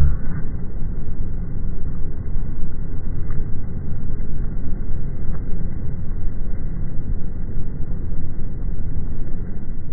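A loud, steady, low rumbling noise.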